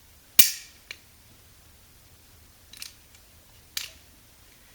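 Hand crimping tool closing on an RJ45 plug: one loud, sharp snap about half a second in as the crimp presses the contacts into the wires, then a few fainter clicks around the middle and near the end.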